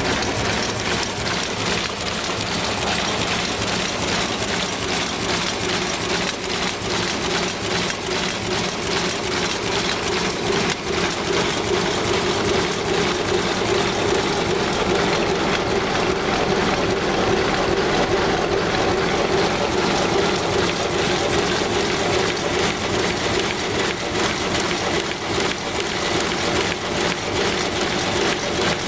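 Automatic cartoning machine for blister bottles running: a steady mechanical clatter of rapid, even clicks with a constant hum under it, the hum growing stronger about halfway through.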